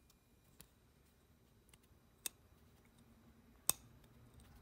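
Three small, sharp metallic clicks from the steel parts of an opened-up 1940s New Britain midget ratchet wrench being worked by hand. The clicks come about a second and a half apart, and the last is the loudest.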